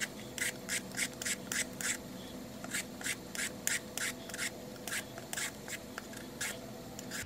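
Y-shaped vegetable peeler scraping the skin off a winter melon in short strokes, about three a second, with a couple of brief pauses.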